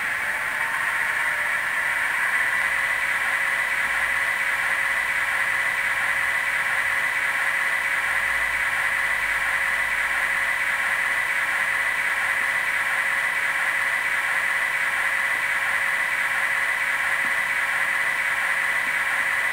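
Digitrax DZN144 DCC sound decoder in a KATO N-scale 115 series model train, playing a standing electric train's idle sound through the model's small built-in speaker: a steady hiss with a constant hum.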